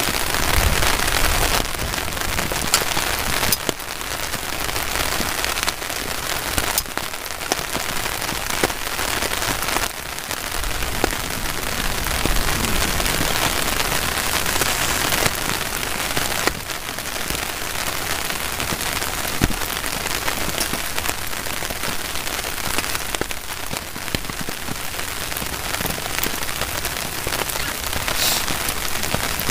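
Heavy rain falling steadily on a flysheet tarp shelter and the grass around it, with the sharp ticks of single drops striking the fabric.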